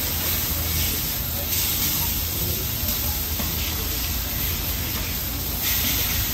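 Thin slices of beef steak sizzling on a hot flat-top griddle, a steady hiss that grows a little louder near the end.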